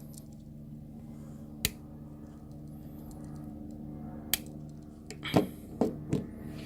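A few sharp clicks and taps from handling a Victorinox Swiss Army knife, one about a second and a half in, another past four seconds, and three close together near the end, over a steady low hum.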